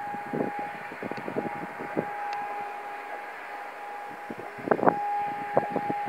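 Distant Hörmann ECN electronic siren holding a steady tone during its weekly test, with a short break about a second in. Wind buffets the microphone throughout, in gusts that are strongest near the end.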